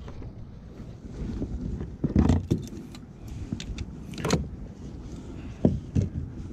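About five dull knocks and rattles of fishing gear against a plastic sit-on-top kayak, as the landing net and rod are handled. The loudest come about two seconds in and again near the end, over a low steady background of wind and water.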